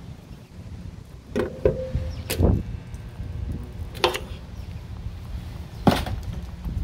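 About five sharp metallic knocks at irregular intervals, some ringing briefly. They come from dent-pulling work on thick sheet metal with a stud-welder dent puller and slide hammer.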